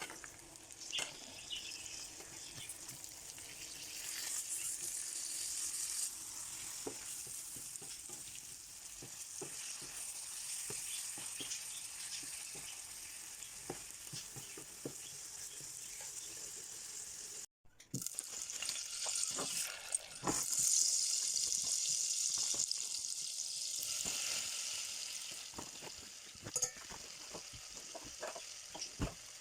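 Food frying in oil in a pan, sizzling steadily, with a spoon stirring and clicking against the pan. The sizzle cuts out for a moment past halfway and comes back louder.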